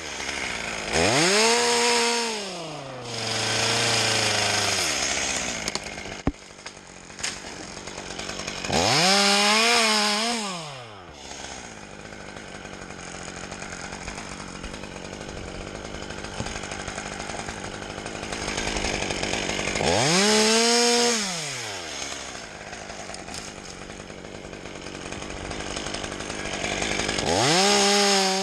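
Chainsaw engine revved up to a high whine and let back down four times, running lower and steadier in between.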